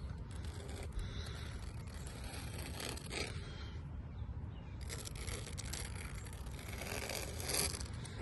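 Caulk spreader scraping along a fresh bead of caulk in a run of strokes, tooling it smooth, the loudest strokes about three seconds in and again in the last three seconds. A low rumble of wind on the microphone lies underneath.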